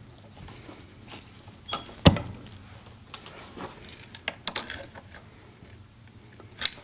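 Wire strippers clicking and snapping as insulation is stripped off electrical wires. There is one sharp snap about two seconds in and a quick run of smaller clicks a couple of seconds later.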